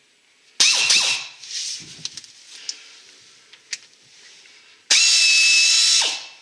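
Pneumatic air ratchet, freshly oiled with air tool oil, run in two bursts to spin off nuts. There is a short burst whose whine drops in pitch about half a second in, then a longer steady whine over air hiss from about five seconds, which winds down near the end.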